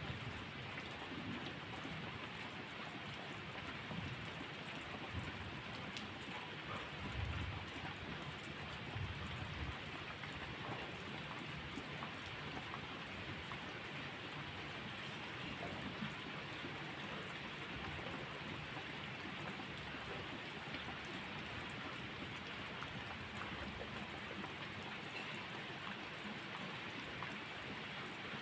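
Steady rain falling, with low rumbles of distant thunder swelling and fading during the first several seconds.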